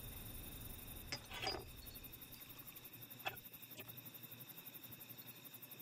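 Quiet background hiss with a few faint clicks, about a second in and twice more near the middle, and a brief soft rustle just after the first click.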